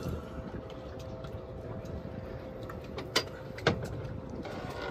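Wind and water noise on a small fishing boat, with a faint steady hum. Two sharp clicks about half a second apart come a little past the middle.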